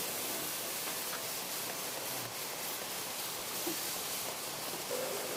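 Circular sock-knitting machines running on a factory floor, heard as a steady, even machine noise with no clear pitch or rhythm.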